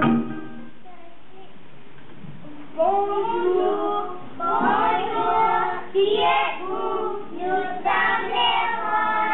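A group of young children singing together, starting about three seconds in after a short lull.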